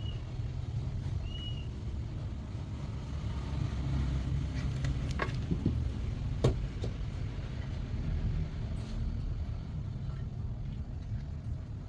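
Steady low hum, with a few sharp clicks and knocks about five and six and a half seconds in.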